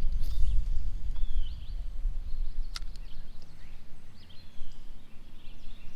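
Small songbirds chirping over and over in short calls, over a steady low rumble that is loudest in the first second and eases after about two seconds. There is one sharp click near the middle.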